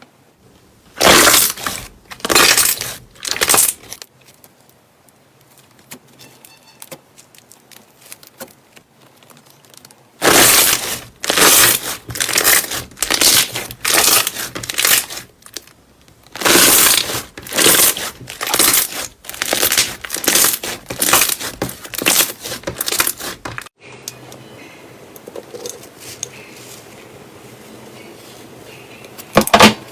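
Slime being squeezed and pulled by hand, giving short, loud crackling, tearing bursts. Three come near the start, then after a quiet spell a run of about a dozen at roughly one a second, and one more near the end.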